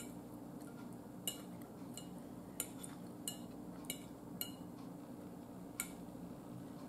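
A metal fork clinking and scraping against a dinner plate while food is picked up: a handful of light, sharp clicks about a second apart.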